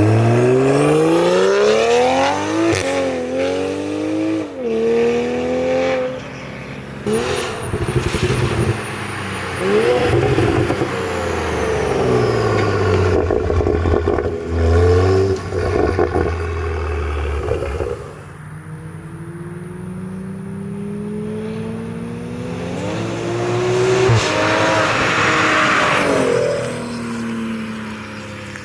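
Toyota Supra A90 with a Forged Projects valved exhaust and catless downpipe, accelerating hard through the gears. The engine note climbs steeply and drops at each quick shift, in several pulls. About two-thirds of the way in the car lifts off and runs quieter, then pulls again near the end.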